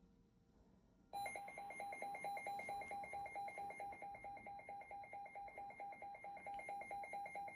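Weather alert radio's alarm sounding for an incoming warning: rapid electronic beeping on two pitches at about eight beeps a second, starting about a second in after near silence.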